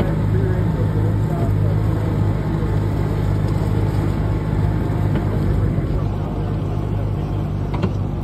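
Go-kart engine running at a steady speed while the kart drives along, with a short click near the end.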